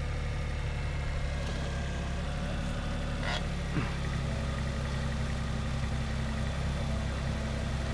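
Diesel engine of a compact excavator or skid-steer running steadily at an even speed, with a faint click about three seconds in.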